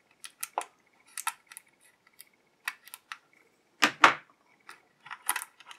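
X-Acto knife slicing tape off an action-figure rifle held in a clear plastic blister tray: a run of small clicks and crackles of thin plastic, with one louder knock about four seconds in.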